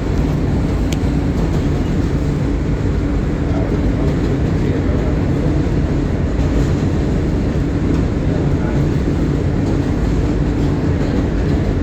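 R160 subway train running across the Williamsburg Bridge: a steady, loud rumble of wheels on the track with a low hum under it.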